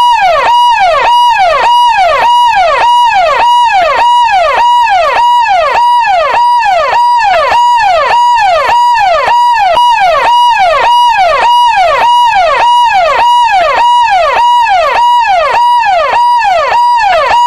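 Police siren sounding a fast, repeating yelp: each cycle sweeps up in pitch, holds briefly and falls away, about three times a second, loud and unbroken.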